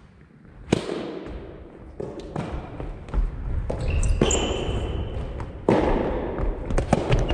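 Soft tennis rally in a large hall: a rubber ball is struck back and forth by rackets and bounces on the wooden floor, each hit a sharp pop with a long echo. The loudest hit comes about three-quarters of a second in, and shoes squeak briefly on the floor in the middle.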